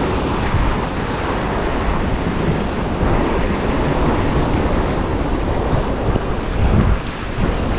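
Sea waves washing and breaking against the rocks in a steady surf, with wind buffeting the microphone.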